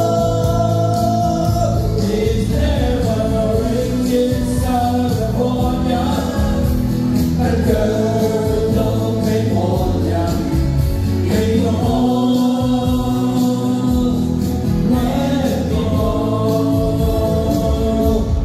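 A small group of men and women singing a pop song together into microphones, with electric guitar and a steady bass accompaniment.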